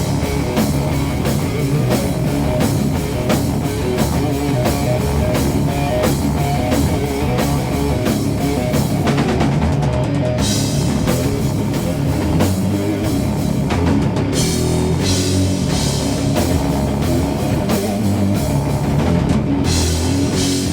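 Doom metal band playing an instrumental passage with no singing: heavy electric guitar riff over bass and drum kit, with steady cymbal wash.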